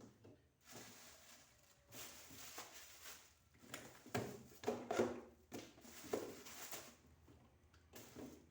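Irregular knocks, scrapes and rubbing as a refrigerator is cleaned: its drawers and shelves being handled.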